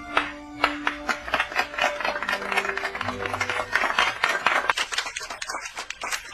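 Cartoon sound effect: a rapid clattering run of many sharp clicks and knocks over a few held musical tones.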